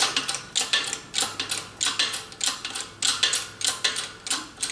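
Shop press being worked by hand, a rapid, even run of sharp metallic clicks about three to four a second, as the ram is brought down to press the input shaft bearing into a Triumph Spitfire single-rail gearbox.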